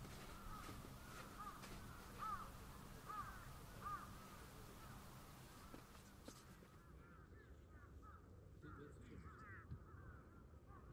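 Faint outdoor bird calls: a run of short calls about once a second, then fainter, scattered calls after the background hiss drops away about seven seconds in.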